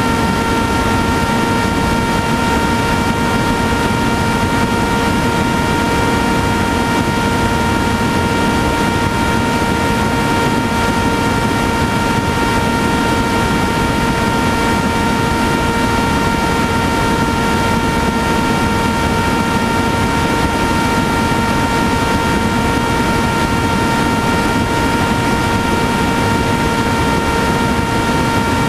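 Electric motor and propeller of a TBS Caipirinha flying wing in cruise: a steady whine that holds one pitch throughout, over rushing wind noise on the onboard microphone.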